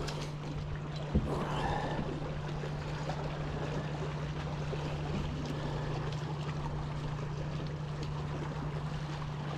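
Steady low hum from a small boat's motor, over water lapping and wind noise; a single sharp knock about a second in.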